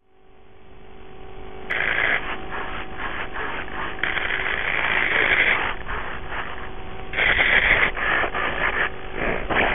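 Rubbing and scraping handling noise picked up by the RC biplane's onboard cockpit-camera microphone while the model is on the ground. It comes in uneven bursts over a faint steady hum.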